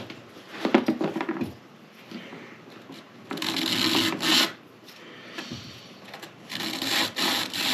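Abrasive rubbing strokes on the freshly cut end of a graphite fishing rod blank, smoothing away a small nub left by the cut. The strokes come in three bursts, quickening near the end.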